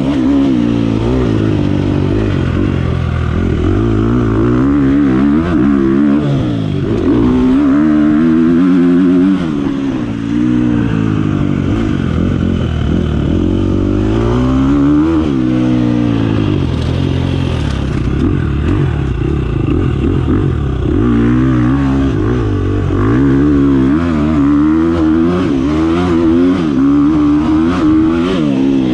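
Dirt bike engine being ridden hard, revving up and dropping back again and again as the rider works the throttle and gears.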